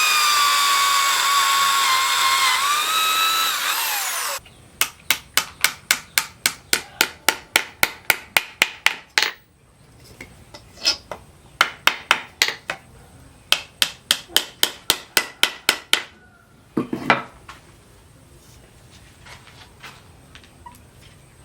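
A power drill whining steadily for about four seconds, dipping in pitch briefly, then cutting off. Then quick light hammer taps on metal, about four a second, in two long runs, with one heavier knock near the end.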